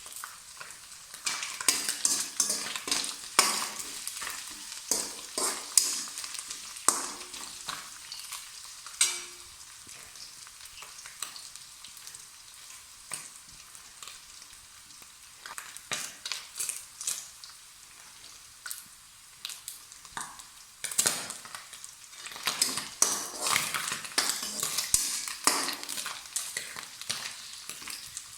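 Food sizzling in hot oil in a pan while a spoon or spatula stirs and scrapes against it. The stirring strokes come thick and fast in the first few seconds and again near the end, with a calmer stretch of steady sizzling in between.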